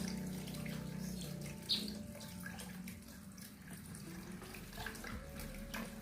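Water running and splashing in a bird's bath, with many small splashes and clicks and one sharper, louder splash about two seconds in.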